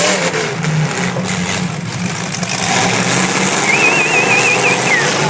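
Demolition derby trucks' engines running together in a steady mix of engine noise. Near the end a high warbling whistle sounds for about a second, then slides down.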